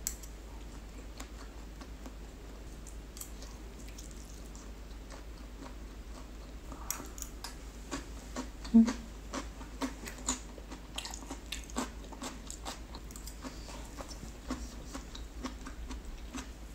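Close-miked mouth sounds of a person eating: soft chewing of roast turkey meat with scattered wet clicks and smacks. A sharper, louder bite comes a little before the middle, as a cherry tomato goes in.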